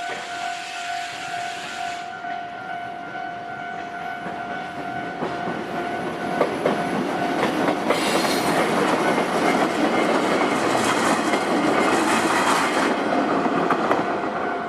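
Japanese level-crossing alarm bell ringing steadily while a train passes over the crossing. The train's rumble builds from about a third of the way in, with a few sharp wheel clicks over rail joints. It is loudest in the second half, nearly drowning the bell, and eases near the end, where the bell comes through clearly again.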